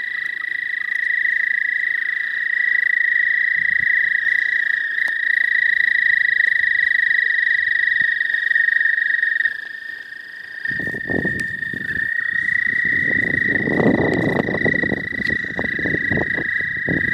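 Toads, taken for eastern American toads, giving long, steady, high musical trills, two voices overlapping at slightly different pitches with a short break a little past halfway. From about two-thirds in, crunching steps on the stony bank join the trilling.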